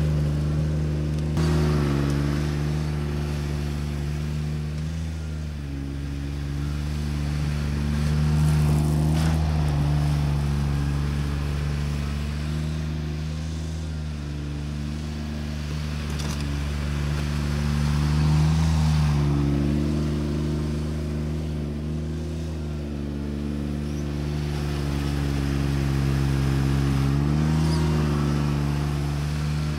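Diesel engine of a John Deere 755 compact tractor running steadily, its pitch dipping and recovering briefly about three times.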